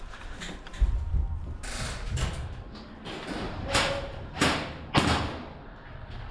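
A low thud about a second in, followed by several separate sharp knocks or cracks spread through the rest.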